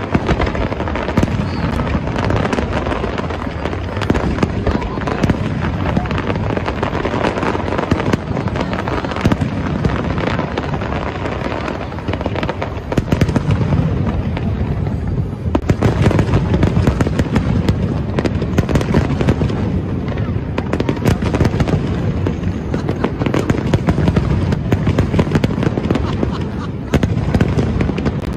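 Fireworks display: aerial shells bursting and crackling in quick, overlapping succession, with a constant low rumble beneath and no break.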